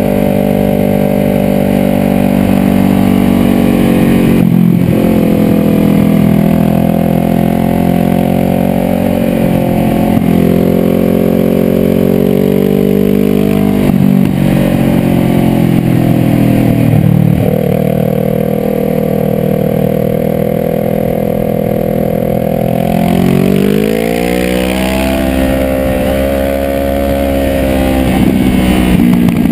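Sport motorcycle engine running hard uphill, heard from the rider's own bike with wind rush over the helmet. The engine note rises and drops several times with throttle and gear changes, with a deep dip and a long climb in revs about three-quarters of the way through.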